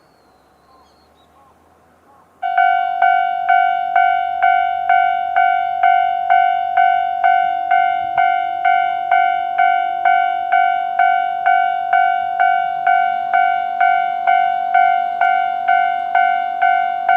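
Japanese railway level-crossing alarm starting about two and a half seconds in and ringing steadily at about two strokes a second, each stroke dying away quickly. It is the crossing's warning that a train is approaching.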